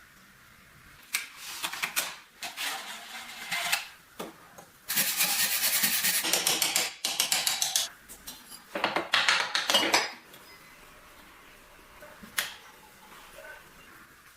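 Rasping scraping and scrubbing on rusty metal sewing-machine parts, coming in several bursts. The longest burst, in the middle, is a fast back-and-forth stroke. A single sharp click follows near the end.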